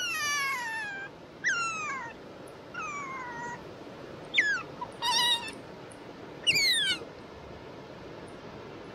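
Pet otter calling: a series of about six short, high-pitched squeaking calls over seven seconds, each sliding down in pitch.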